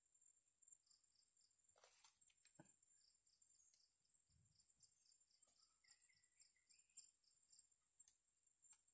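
Faint insects: a steady high-pitched buzz, with a quick rhythmic chirping of about three or four chirps a second over it, and a few faint clicks.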